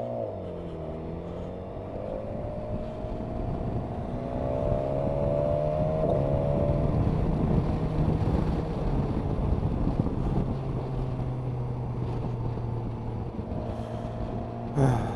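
BMW S1000 XR inline-four motorcycle engine heard from the bike as it rides: the engine note drops at the start, then climbs steadily as the bike accelerates and settles into a steady cruise, with wind noise over the microphone.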